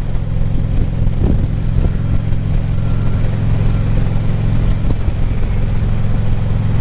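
Harley-Davidson Ultra Classic Limited's V-twin engine running steadily at highway cruising speed, over an even rush of wind and road noise.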